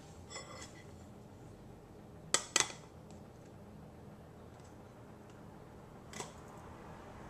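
A plate and a loaf pan clinking and knocking against each other as the pan is turned out. A short ringing clink comes near the start, two sharp knocks about two and a half seconds in, and one more knock about six seconds in.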